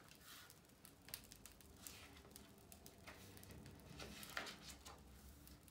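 Near silence: room tone with a faint low hum and a few soft, scattered ticks.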